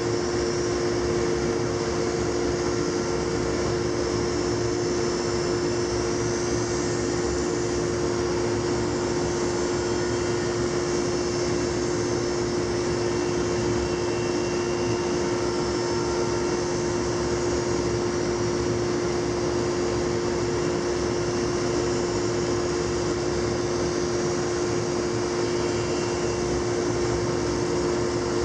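Laguna 25-inch planer with a ShearTec II spiral cutterhead running steadily, a loud even drone with a strong steady pitch over a wash of cutting and motor noise.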